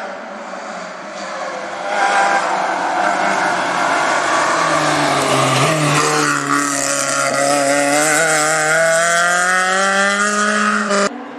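BMW 3 Series Compact rally car engine at racing speed. It comes in loud about two seconds in and drops briefly as the car takes the bend, then climbs steadily in pitch as it accelerates hard away. The sound cuts off suddenly near the end.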